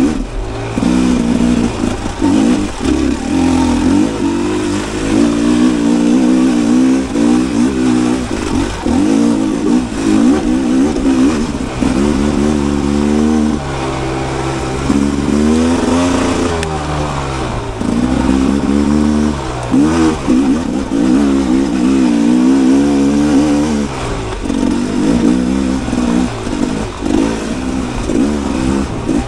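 Two-stroke single-cylinder engine of a 2022 Rieju MR 300 Pro dirt bike under way, its pitch rising and dropping back over and over as the throttle is opened and closed.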